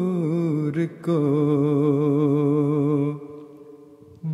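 A solo male voice singing an Urdu nazm in a chant-like style, drawing out long notes with a wavering vibrato. A short break comes about a second in, then one long held note fades away about three seconds in, and the singing picks up again at the very end.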